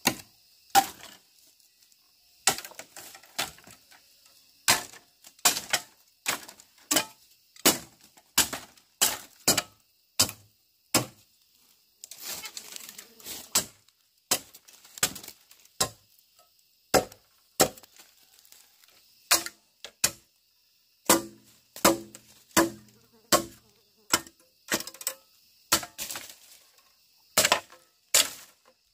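Repeated sharp strikes of a tool on wood, one or two a second at uneven spacing, as in building work with timber or bamboo. A steady insect drone sounds underneath, and a short rustling comes about twelve seconds in.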